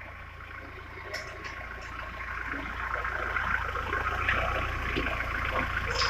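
Mahindra Thar CRDe's four-cylinder common-rail diesel engine running as the vehicle creeps forward at low speed, a steady low hum that grows louder as it draws near.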